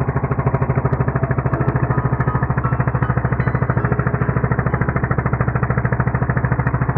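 Small gasoline engine of a motorized fishing boat running steadily at cruising speed, its firing pulses coming fast and even.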